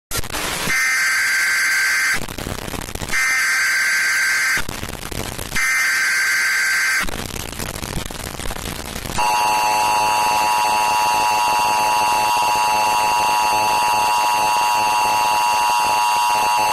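Emergency Alert System broadcast alert: three short bursts of the screeching SAME digital header tones with a hiss of noise between them. About nine seconds in, the steady two-tone EAS attention signal starts and holds.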